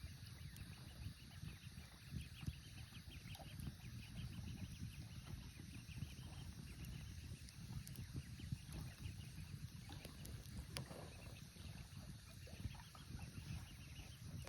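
Faint, rapid trilling bird calls repeating in runs over a steady low rumble.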